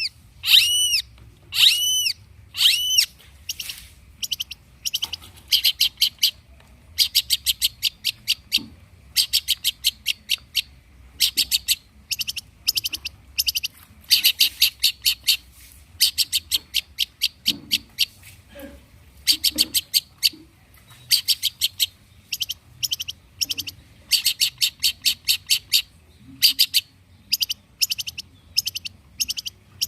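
Long-tailed shrike singing: a few harsh, arched calls in the first seconds, then repeated quick chattering phrases of rapid high notes with short gaps between them.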